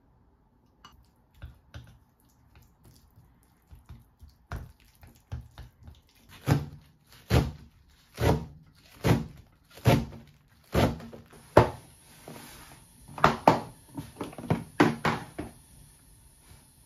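Kitchen knife slicing lettuce on a plastic cutting board: a regular run of sharp knocks about one a second, after a few softer scattered clicks.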